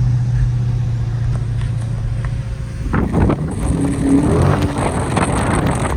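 Dodge Charger R/T's 5.7 Hemi V8 droning steadily at cruise, heard from inside the cabin. About halfway through, a louder rush of wind and road noise takes over.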